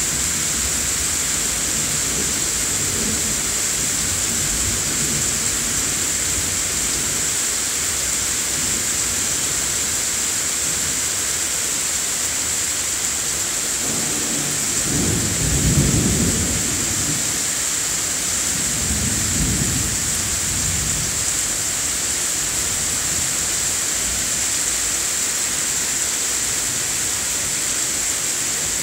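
Heavy thunderstorm: steady rain hiss with rolling thunder. A loud rumble swells a second or two after a lightning flash about fourteen seconds in, followed by a second, weaker rumble a few seconds later.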